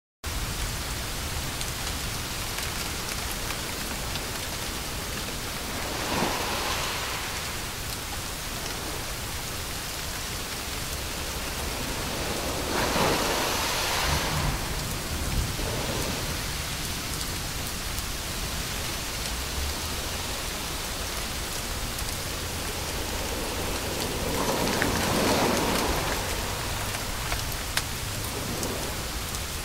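White noise for soothing a baby: an even hiss with a few slow swells, about six, thirteen and twenty-five seconds in.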